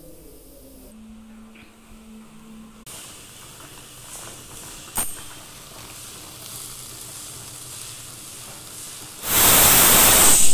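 A pressure cooker on a lit gas burner letting off steam in a loud hiss that lasts a little over a second near the end. A single sharp click comes about halfway through.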